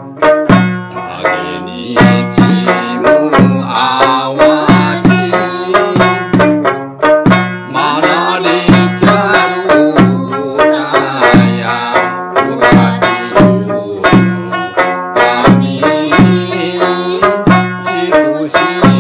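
Okinawan folk song (min'yō) performed live: a man sings in a bending, ornamented voice over steady plucked notes from a three-stringed snakeskin sanshin, with a drum struck with a stick keeping the beat.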